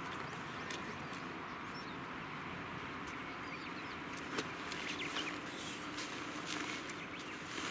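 Tent poles clicking and knocking and tent fabric rustling as a large dome tent is pitched, over a steady outdoor hiss. A few faint bird chirps, and a faint low hum from about halfway through.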